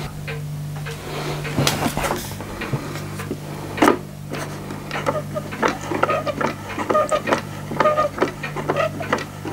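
Plastic beam-engine water pump model working: its linkage and pump piston click in a steady rhythm about twice a second, with one louder click about four seconds in and short squeaks in the second half. A steady low hum runs underneath.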